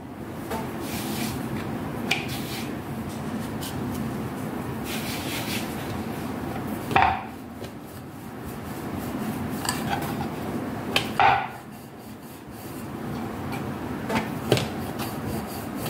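Rolling pin rubbing back and forth over wheat-flour dough on a wooden rolling board as thin chapatis are rolled out, a steady rubbing broken by a few sharp knocks.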